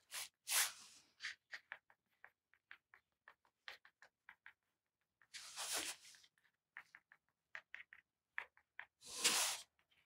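Watercolour pencil tip drawing little circles and dots on watercolour paper: faint, irregular scratchy ticks, several a second. Three louder swishes of about half a second come near the start, in the middle and near the end.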